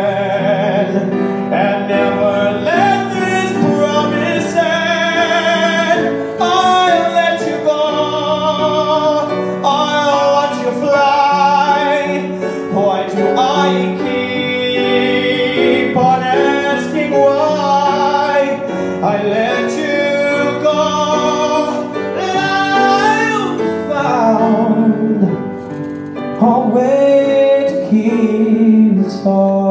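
A man singing a ballad live into a microphone over instrumental accompaniment, holding long notes with vibrato.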